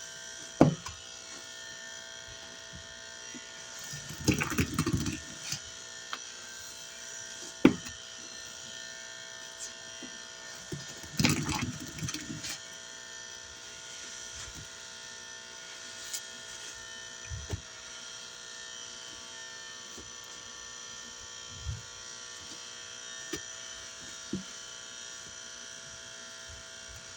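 Soapy sponge loaded with Soft Scrub cleanser paste squeezed by hand, squelching twice in longer bursts, with a few sharp clicks in between. A steady electrical buzz runs underneath.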